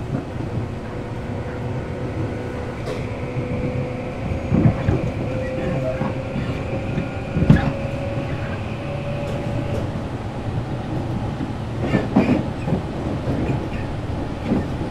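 Tobu 8000 series electric train heard from inside a motor car as it runs toward a station stop: a steady rumble of wheels and motors with a humming tone that fades out about ten seconds in. Several knocks come as the wheels cross rail joints.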